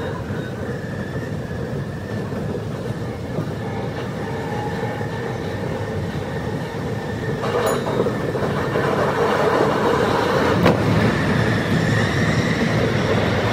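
Tsukuba Express electric train running at speed, heard from the driver's cab: a steady rumble of wheels on rail with a faint high whine. Two short clicks come through, and the running noise grows louder in the second half.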